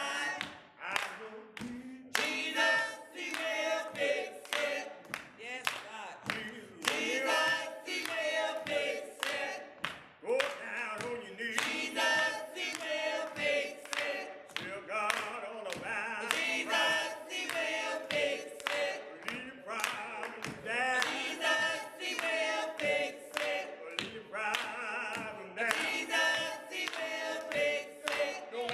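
A small mixed group of men and women singing a gospel song a cappella, with hand-clapping in time.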